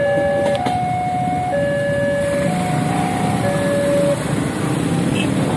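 Railway level-crossing warning alarm sounding in two alternating tones, switching about once a second, then cutting off about four seconds in as the crossing clears and the barrier rises. A low rumble of the departing train and waiting motorcycles runs underneath.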